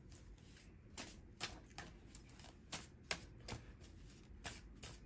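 Oracle cards being shuffled by hand: a run of faint, irregular clicks and slaps, about eight in all.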